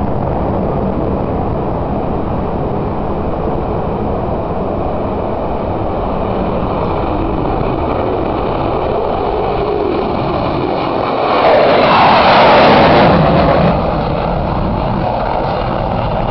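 F-16 fighter jet taking off in full afterburner: a loud continuous roar that swells louder for about two seconds, three-quarters of the way through, as the jet passes.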